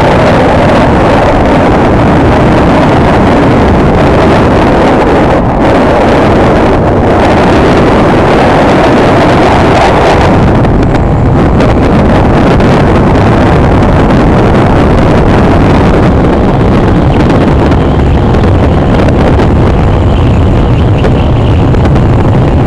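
Honda Tornado 250's single-cylinder engine running on the move, loud and steady, heavily mixed with wind rushing over the microphone.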